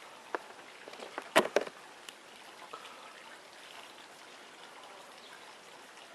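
A few sharp clicks and knocks, the loudest a quick cluster about a second and a half in, over a faint steady trickling hiss.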